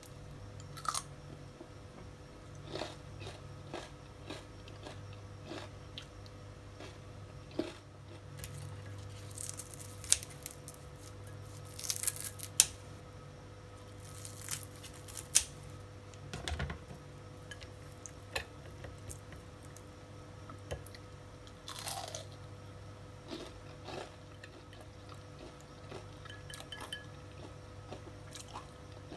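Crispy deep-fried mung bean sprout and dried shrimp fritters crunching, in irregular sharp crackles that bunch up in the middle, as they are cut into and bitten. A steady low hum underneath.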